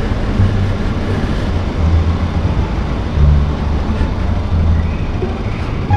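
Bajaj Rouser 200NS motorcycle's single-cylinder engine running while the bike rolls slowly, a low rumble that swells and eases every second or so.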